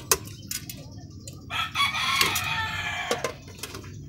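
A sharp clink of a stainless-steel tray lid at the start, then a loud, long pitched call lasting about a second and a half, sagging slightly in pitch at its end, with another click near the end.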